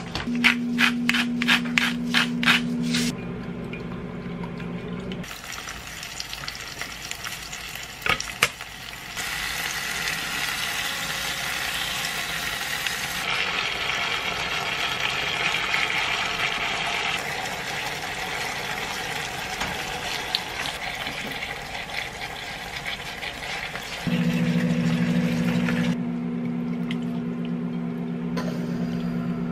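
Cooking sounds: chopsticks beating an egg mixture in a pot with rapid, even strokes for a few seconds, then food sizzling and frying on the stove for most of the time. A steady low hum runs under the beating at the start and comes back near the end.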